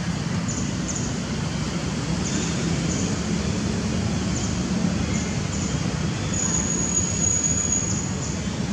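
Steady low rumble of outdoor background noise, with faint short high chirps every second or two and a thin high whine from about six and a half to eight seconds in.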